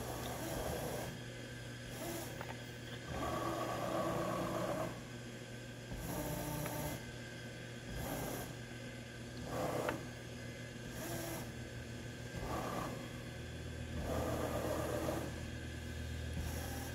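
Acu-Rite MillPWR CNC axis drive motors moving the mill table in a dry run of a program: a series of short moves, each a steady whine lasting one to two seconds, over a continuous low hum.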